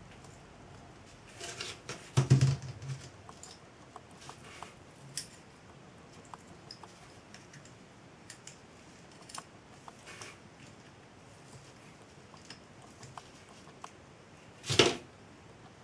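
Small metal parts and a spanner handled on a workbench: scattered light clicks and clinks as a bolt is fitted and tightened on a model traction engine's front axle beam, with two louder knocks, one about two seconds in and one near the end.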